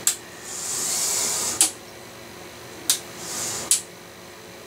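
Small electric motor of a model railway locomotive whirring in two short runs, the first about a second long and the second shorter, each starting and stopping with a sharp click. The locomotive runs on its own without a coach and without wheel slip.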